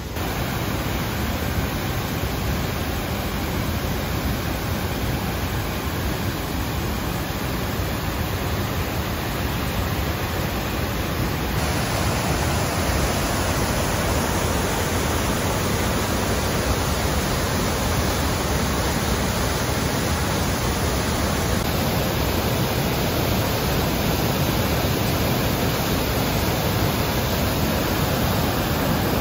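Waterfall on the Petawawa River: a steady rush of falling water, turning hissier for about ten seconds in the middle.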